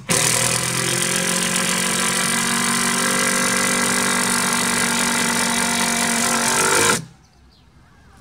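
Cordless drill running steadily under load as it drives a screw into the wooden boards of a raised garden bed. It stops abruptly about seven seconds in.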